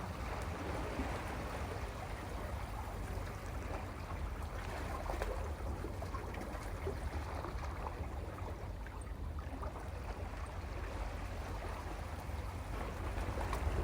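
Sea water washing and swirling among shoreline rocks, a steady churning wash with small splashes, swelling slightly near the end as a wave comes in.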